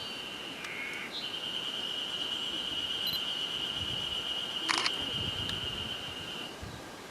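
A single high, steady tone held for about five seconds, with a shorter tone just before it. Near the end of the tone comes one sharp camera-shutter click, the loudest sound.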